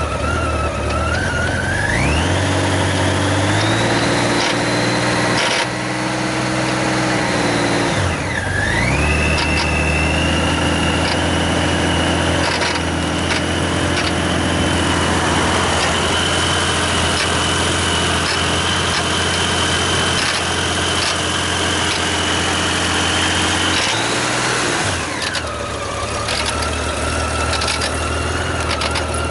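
Honda Gold Wing GL1500's flat-six engine, idling and then held at a higher speed twice before dropping back to idle. A whining tone rises and falls with the engine speed, and there are light ticks. The owner considers the noise abnormal.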